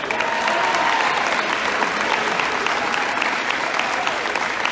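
Crowd applauding: many hands clapping in a dense, steady patter that eases off slightly near the end.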